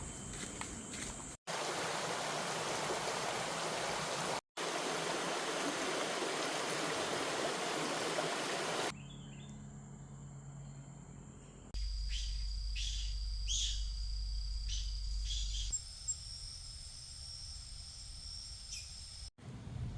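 Forest ambience in short cuts: a steady rush of running water, then a steady high-pitched insect drone with birds chirping.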